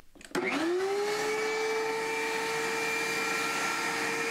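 DeWALT DW735 thickness planer switched on and running empty: its 15-amp motor, cutterhead and chip-ejection fan spin up with a quickly rising whine that settles within about a second into a steady whine. The fan is blowing air hard out of the dust port with no collector running.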